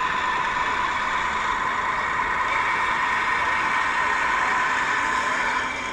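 Model railway train running on the layout: a steady mechanical hum with a constant whine, fading near the end.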